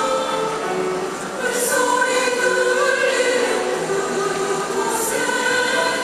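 Large women's choir singing in harmony, holding long notes in phrases that break briefly about a second in and again near the end.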